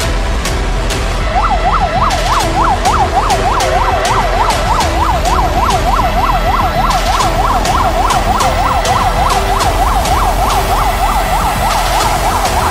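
Ambulance siren on fast yelp, its pitch sweeping up and down about four times a second. It starts about a second and a half in.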